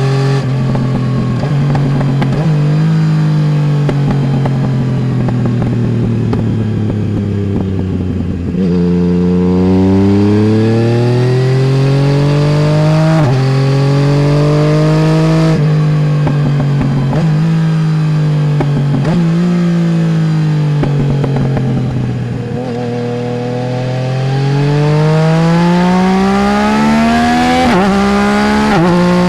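Yamaha Tracer 900 GT's three-cylinder engine through a full Roads Italia aftermarket exhaust, heard from the pillion seat while riding. It slows on the overrun at first, then pulls up through several gear changes, and near the end accelerates hard with a steeply rising note.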